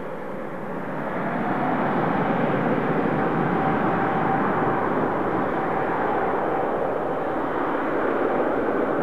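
Airbus A350 jet engines (Rolls-Royce Trent XWB turbofans) running at high thrust: a broad roar with a faint steady whine, swelling about a second in and then holding steady.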